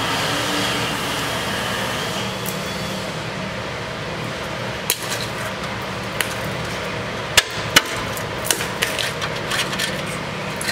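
Packed rust scale inside the frame rail of a 2007 Toyota FJ Cruiser being broken up and pulled out by hand: a string of sharp cracks and crunches of flaking rust, beginning about five seconds in, over a steady background whir.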